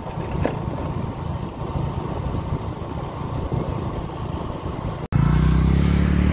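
Vehicle engine running on the move, a steady low rumble. After a sudden cut about five seconds in, a louder engine hum follows, starting to fall in pitch at the very end as it slows.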